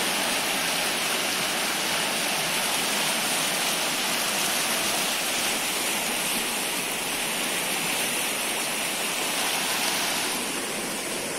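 Muddy floodwater of a swollen river rushing past in a steady, continuous flow. It eases off slightly near the end.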